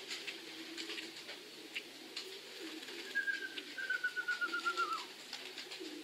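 Racing pigeons cooing at the loft, a low wavering murmur throughout. About three seconds in, a small bird gives a quick two-second trill of high notes that fall slightly in pitch, the loudest sound here; faint light clicks scattered throughout.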